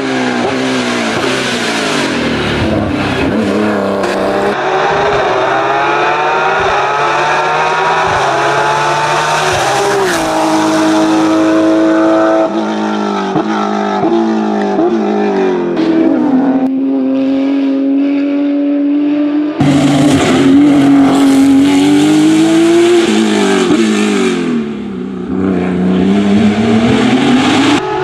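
Porsche 991.2 GT3 Cup's 4.0-litre flat-six race engine at high revs, its pitch climbing through the gears and dropping sharply on downshifts and lift-offs, several times over. The sound changes abruptly about two-thirds of the way in.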